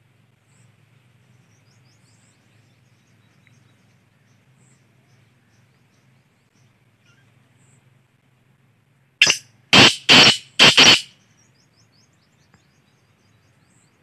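Black francolin calling: one loud, harsh call of four quick notes in about two seconds, starting about nine seconds in, the first note shorter than the rest. Faint high chirping runs beneath it.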